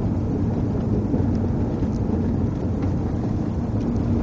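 Steady low rumble of a car running along a road, with a faint engine hum under it.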